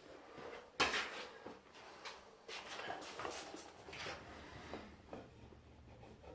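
Short knocks and scrapes of hand tools being handled against hard surfaces, with the loudest knock about a second in and several shorter scrapes after it.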